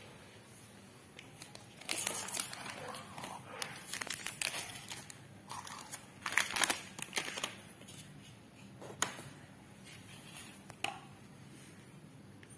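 Clear plastic wrapping crinkling as packaged gift trinkets are handled, in irregular rustles starting about two seconds in and loudest around the middle, with a couple of sharp clicks near the end.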